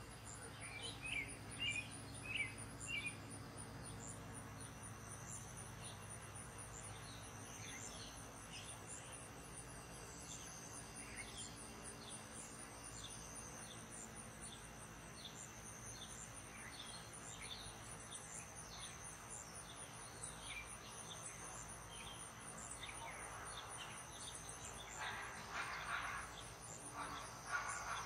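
Evening garden ambience: a chorus of insects keeps up a steady, evenly pulsing high trill, with scattered short bird chirps, several of them close together in the first few seconds. Near the end come a few louder, harsher bursts.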